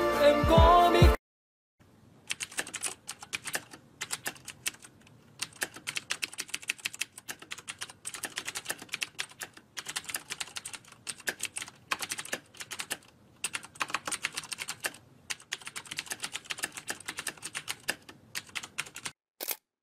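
Keyboard typing clicks, a typing sound effect that goes in quick, uneven runs with short pauses. A song cuts off about a second in, just before the typing starts.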